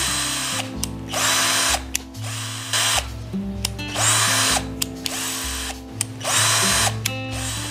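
A 12 V cordless drill driver runs in several short trigger bursts, its motor spinning up and winding down each time, while the two-speed gear selector is switched between speed 1 and speed 2. The gears change without catching.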